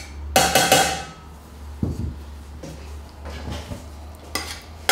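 A metal spoon clattering against a stainless steel pot and a bowl as butter is knocked into the pot. The loudest clatter, with a short metallic ring, comes about half a second in, followed by a few lighter clinks of the spoon in the pot, over a steady low hum.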